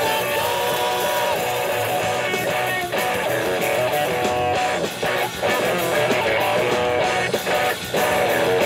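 Rock band playing, with electric guitars strummed over drums.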